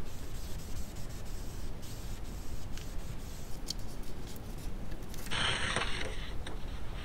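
Hand burnishing the back of a photocopy to transfer it with eucalyptus oil: soft rubbing and scratching of paper, with one louder scrape about five seconds in, over a low steady hum.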